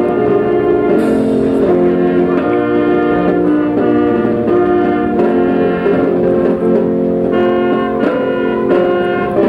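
Brass band playing, full held chords moving from one to the next about every half second to a second.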